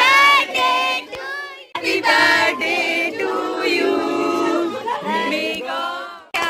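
A group of voices singing a song, cut off abruptly twice, once just before two seconds in and again near the end.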